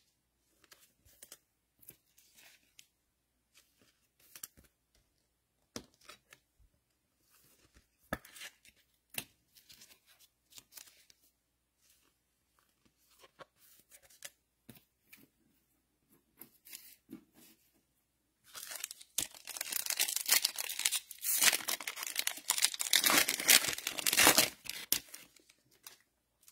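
Foil wrapper of a Panini Select football card pack being torn open and crinkled, loud for about six seconds in the latter part. Before that come faint, scattered clicks and rustles of cards being handled.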